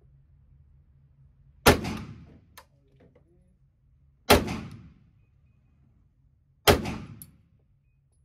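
Three 9 mm pistol shots about two and a half seconds apart, each sharp crack trailing off in a short ring of echo.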